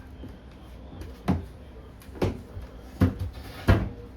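Four sharp knocks, a second or less apart, as a hinged glass aquarium lid is handled and set in place.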